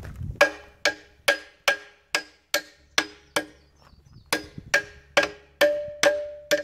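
Hand hammer striking a forged steel hook freshly welded onto a Bobcat E42 excavator bucket, a hammer test of the welds' strength. About two strikes a second, each ringing out like struck steel, with a pause of about a second halfway through before the strikes resume.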